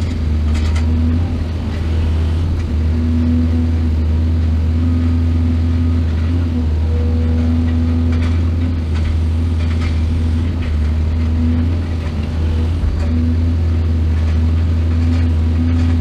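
Mining excavator's heavy diesel engine running steadily, with a few faint clanks.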